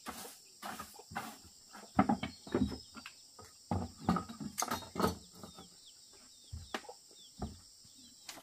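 A run of irregular knocks and thumps, a dozen or more, over a steady high insect buzz.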